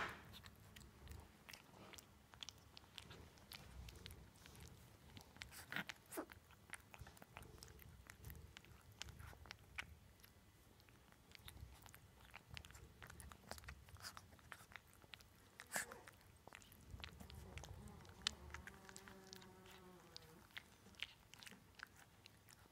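Two-week-old mastiff puppy licking and lapping soft food off a metal spoon: faint wet smacking clicks in quick, irregular succession.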